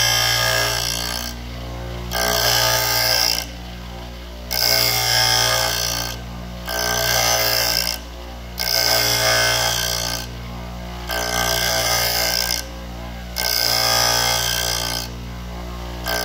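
Bench grinder motor running with a steady hum while a steel twist drill bit, clamped in a sharpening jig, is swung against the grinding wheel in repeated passes: about eight bursts of high grinding noise, each a second or so long, with only the motor hum between them. The bit's cutting lip is being ground to angle with light passes so it does not overheat.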